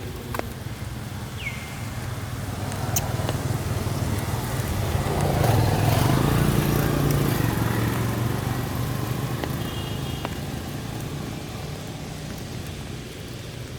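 A motor vehicle passing by: its engine and tyre noise build up, peak about halfway through, and fade away again.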